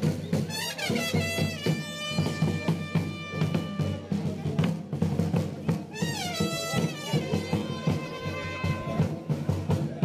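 Traditional carnival band of trumpet and large drum playing. The trumpet slides down into long held notes about half a second in and again about six seconds in, over a steady run of drumbeats.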